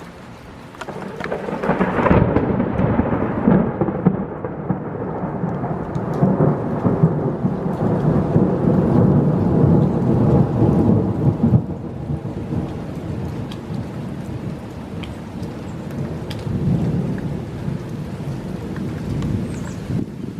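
A long roll of thunder over steady rain: the rumble swells about a second in, stays loud for about ten seconds, then eases into a softer rolling rumble that carries on to the end.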